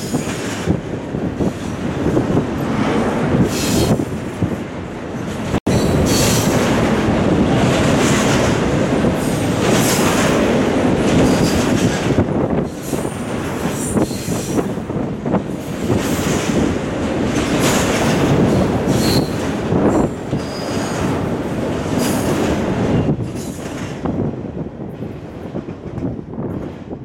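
Double-stack intermodal container train's well cars rolling past: a steady rumble with the clack of wheels and a few brief high wheel squeals. It dies away over the last few seconds as the end of the train passes.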